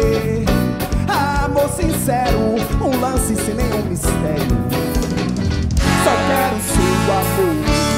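A live band playing upbeat music, with drum kit, electric guitar, saxophone and keyboard under a lead melody that slides up and down in pitch.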